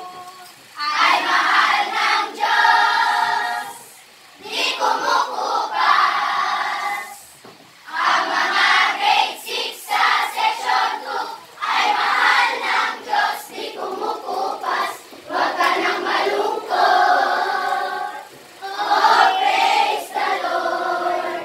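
A class of about twelve-year-old children singing a greeting song together in Tagalog, in phrases of a few seconds with short pauses between them, with some hand clapping along.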